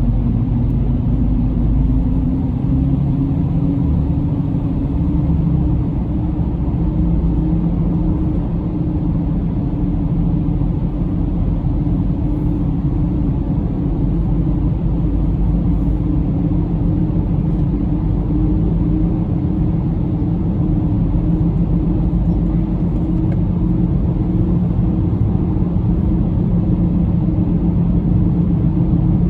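A car cruising at steady speed, heard from inside the cabin: an even low rumble of road and engine noise with a steady hum.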